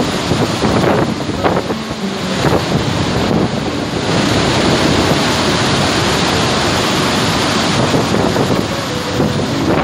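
Iguazú Falls: a steady, loud rush of a huge volume of water plunging and crashing into the gorge, with wind buffeting the microphone.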